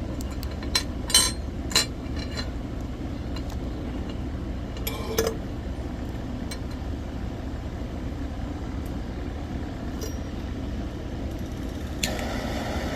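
Glass clinks and light taps as a banger is handled and fitted on a small glass dab rig. About a second before the end a torch lights with a sudden steady hiss, heating the banger.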